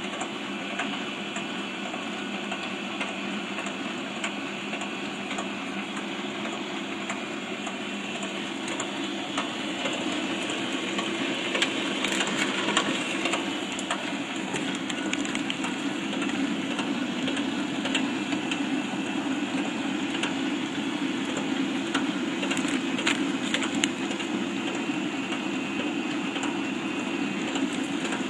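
FR-1000 continuous band sealer running: its motor and conveyor belts make a steady mechanical rattle with fine rapid ticking. The noise grows louder about ten seconds in, with a few sharper clicks.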